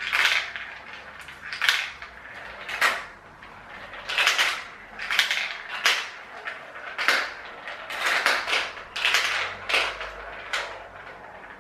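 Glass marbles clacking and rattling down a plastic marble run, a dozen or so sharp clatters about a second apart as they drop through the funnels and tracks.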